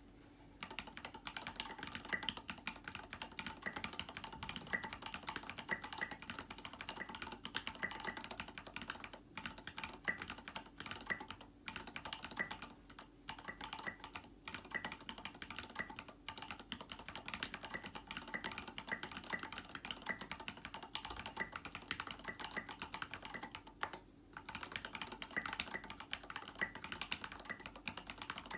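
Mechanical keyboard being typed on continuously: lubed retooled Cherry MX Black linear switches with 55 g springs, SA-profile keycaps on an aluminium plate, giving a steady stream of key presses with a few short pauses.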